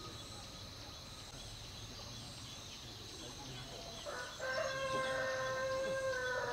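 A rooster crowing once: a single long call starting about four seconds in, held steady and dropping in pitch at the end.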